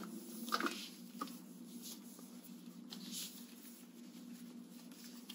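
Faint rubbing and rustling of hands working lotion into skin, with two soft clicks about half a second and a second in, over a steady low hum.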